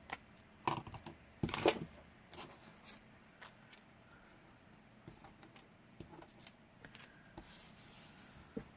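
Paper scraps rustling and being shuffled by hand, with scattered light clicks and taps.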